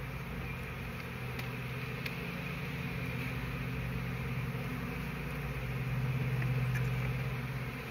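Honey bees buzzing in a cloud around their opened colony, stirred up as their comb is lifted out: a steady low drone that swells about six seconds in.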